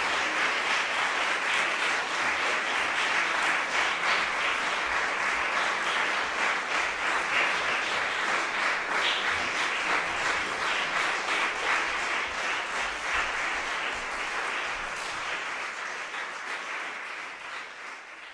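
Audience applauding, many hands clapping together, gradually fading out over the last several seconds.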